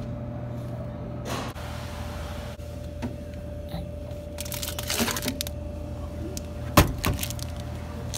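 Snack vending machine humming steadily while a hand reaches in through the pickup flap to take out the snack, rustling. Two sharp knocks come about two-thirds through and are the loudest sounds, fitting the flap swinging back.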